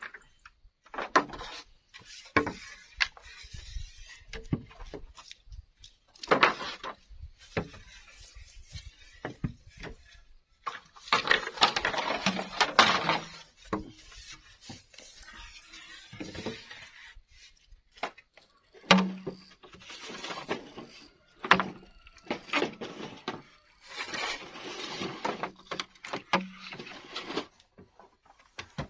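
Bamboo or wood being worked by hand: scattered sharp knocks and clacks, with several rasping, scraping stretches lasting a second or two.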